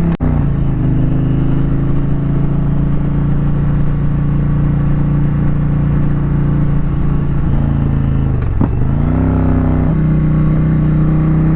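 2022 Indian Challenger Elite's PowerPlus V-twin running under way. Its note drops abruptly just after the start, as on an upshift, and holds steady. Around eight seconds in it sags, then climbs again as the throttle opens.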